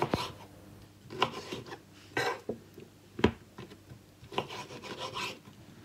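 Kitchen knife cutting lemon slices on a wooden cutting board: the blade knocks and scrapes on the board in about seven irregular strokes, the sharpest about three seconds in.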